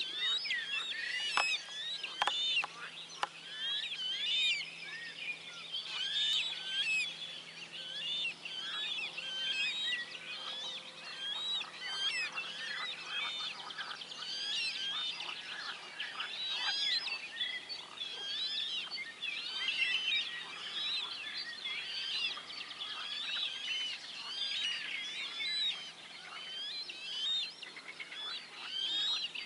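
Dawn chorus: many songbirds singing at once in dense, overlapping trills and chirps, with a few short harsh calls in the first few seconds.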